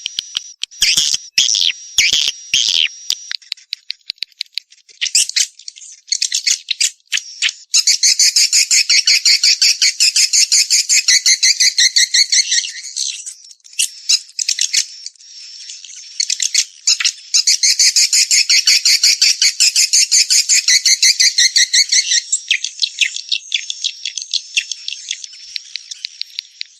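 Swiftlet calls from a swiftlet calling-sound recording (suara panggil walet): sharp high chirps and clicks, with two long, fast rattling trills lasting several seconds each, one about a third of the way in and one past the middle.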